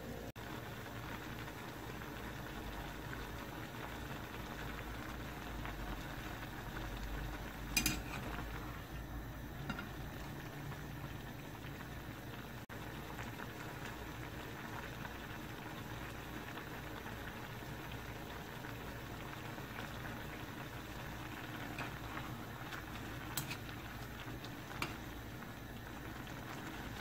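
Spicy gochujang sauce bubbling at a steady boil in a stainless steel pot, with a block of instant ramen noodles cooking in it. A sharp click sounds about eight seconds in, and a few lighter clicks come near the end as the noodles are stirred with metal tongs.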